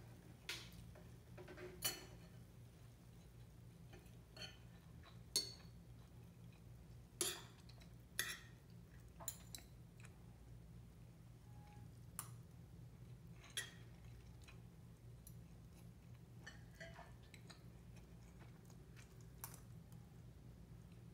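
Metal spoon and fork clinking and scraping against a ceramic bowl during a meal, in scattered, irregular clinks every second or two.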